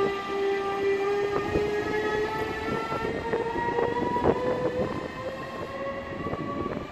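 DB Class 146 electric locomotive accelerating, its drive whine rising slowly and steadily in pitch, with scattered clicks and knocks from the wheels on the track.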